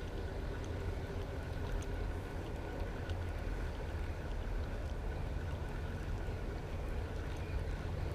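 A passing boat's engine running steadily: a low, even rumble with a faint steady whine above it.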